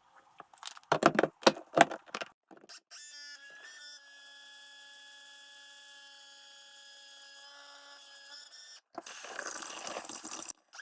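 Garbage disposal: a few sharp clattering knocks, then its electric motor hums steadily with a clear tone for about five seconds, then a loud rushing noise near the end.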